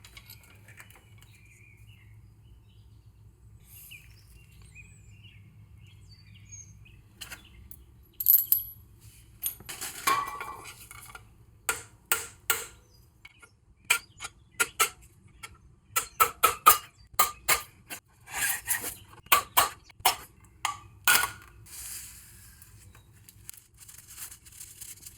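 Metal tools and CV axle parts clinking and knocking as the joint is taken apart: an irregular run of sharp metallic clicks and taps starting about eight seconds in.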